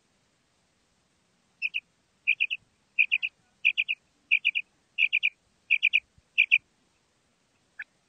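Common quail calling: eight quick clusters of two or three short, high, clipped notes, repeated evenly about every two-thirds of a second, starting about a second and a half in and stopping a little over a second before the end.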